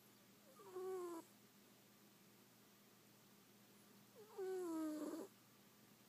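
Cat snoring: two snores about three and a half seconds apart, each about a second long, with a tone that slides down in pitch.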